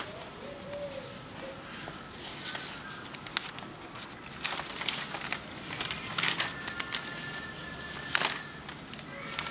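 Large newsprint pages being handled and turned, the paper rustling and crackling in several short bursts.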